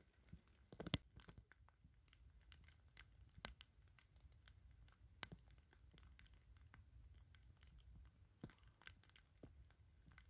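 Light rain: faint, irregular ticks of raindrops falling close by, a few to several a second, some louder than others.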